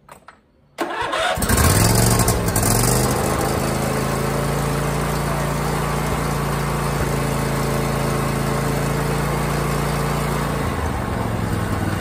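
John Deere LA145 riding mower's 22 horsepower Briggs & Stratton twin engine being started: a click, a brief burst of cranking, and the engine catches at once, revs up and settles into a steady run. Its note drops near the end. It starts and runs now that the backwards customer wiring has been corrected.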